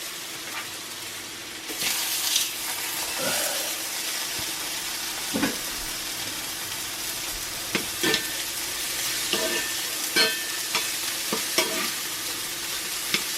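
Sliced Spam frying in a hot cast iron pan. The sizzle grows louder about two seconds in as slices go in, with scattered clinks and scrapes of a utensil against the pan.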